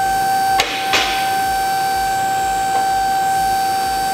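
Two-post car lift's electric hydraulic pump running with a steady high whine as the carriages rise. Two metallic clacks come about half a second and a second in, and a fainter one near the middle: the mechanical safety locks catching every few inches as the columns' carriages climb.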